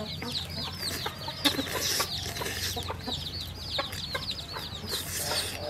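Chicks peeping continuously: many short, high, falling chirps, several a second, with scattered faint clicks beneath.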